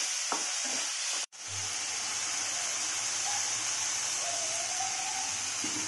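Chopped tomatoes and onions sizzling in hot oil in a pan: a steady frying hiss, cutting out for a moment a little over a second in.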